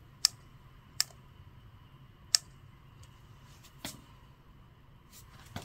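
About five sharp plastic clicks, spaced irregularly, as a wireless LED turn-signal unit and its remote are handled and their buttons pressed during power-on.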